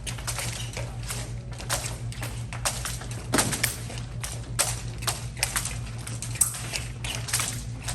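Épée bout in progress: irregular sharp clicks and taps of blades and fencers' footwork, several a second, over a steady low hum.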